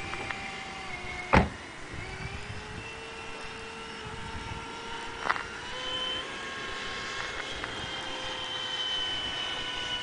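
Electric ducted fan of a radio-controlled jet (a Vasafan 90 unit on a Typhoon 700-68 1500 kV motor) whining steadily in flight; its pitch drops about a second and a half in, then climbs slowly. A sharp click comes about a second and a half in, and a fainter one about five seconds in.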